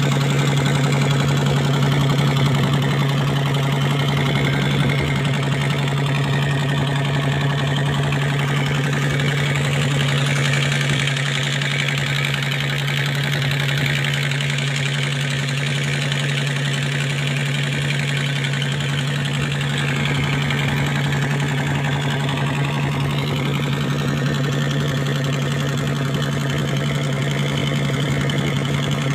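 A fishing boat's engine running steadily while the boat is under way, a constant low drone, with water rushing past the hull.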